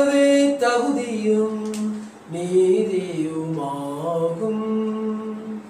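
A priest chanting a prayer of the mass in a single male voice: two long phrases on held, slowly stepping notes, with a short breath between them about two seconds in.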